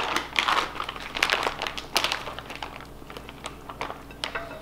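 Plastic sous vide bag crinkling as it is handled and opened, with irregular crackles that thin out toward the end.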